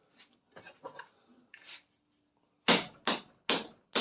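Hammer blows on a steel punch, driving the old nylon trunnion bushing out of a Triumph Spitfire suspension part: a few faint clicks and scrapes, then about halfway through four sharp strikes a little under half a second apart.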